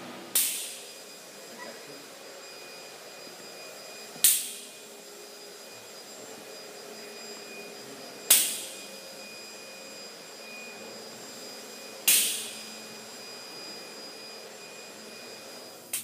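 Concrete dye spray rig running steadily with a faint high whine, broken by four short, sharp hisses about four seconds apart that each die away within half a second.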